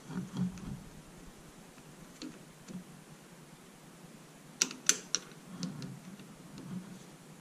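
Screwdriver ticking and clicking against the small screws and metal magneto plate of an outboard motor's ignition, with a few faint taps and a quick run of three sharp clicks about halfway through, amid soft handling bumps.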